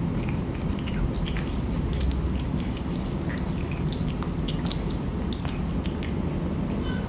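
Stray cat chewing and crunching food, a scatter of short irregular crunches, over a steady low rumble.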